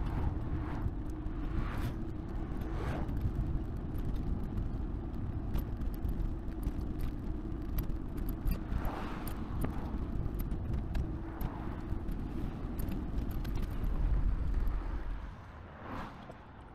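Steady wind and road rumble from riding a cargo bike along a street, with cars passing now and then. It dips quieter near the end.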